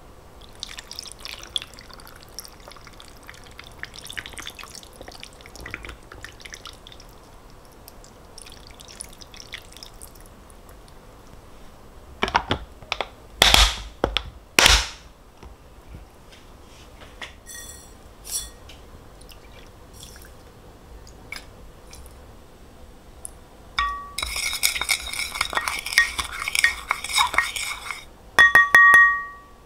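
Kitchen handling sounds: dishes and glassware clinking and being set down. There are several loud knocks about halfway through and a dense run of clinking with ringing glass tones near the end.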